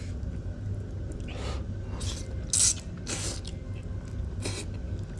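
A person slurping up stir-fried noodles in a string of short, hissing sucks, the loudest about two and a half seconds in, over a steady low hum.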